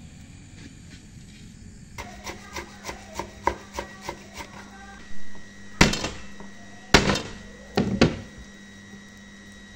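Kitchen knife chopping herbs on a plastic cutting board: quick knocks, about three or four a second, start about two seconds in, followed by a few much louder knocks.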